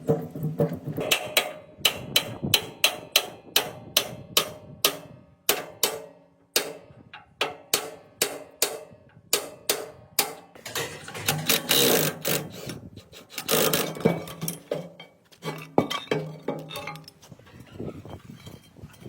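Repeated hammer blows on metal, about two to three strikes a second, then a busier, irregular stretch of knocking and clinking.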